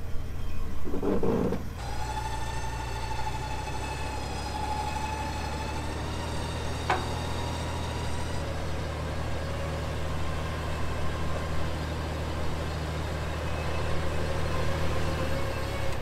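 Vehicle engine idling steadily, with a steady high-pitched whine over it that drops lower about eight seconds in. A single sharp click sounds about seven seconds in.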